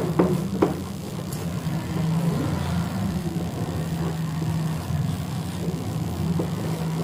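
Chalk tapping and scratching on a blackboard as a word is written, with two sharp taps in the first second. A steady low engine-like hum runs underneath.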